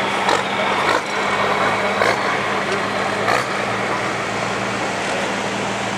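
Steady running of track-prep machinery: a rubber-tyred roller packing the dirt pulling track and a John Deere tractor, with engine hum and a few sharp knocks.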